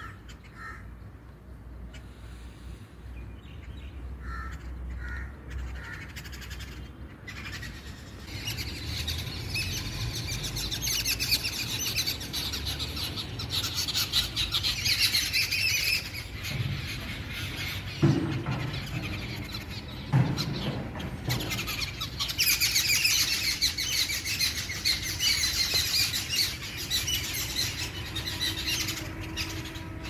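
A flock of babblers calling in a continuous chatter, sparse at first and then dense from about eight seconds in, thickest in two long spells. Two low thumps sound partway through.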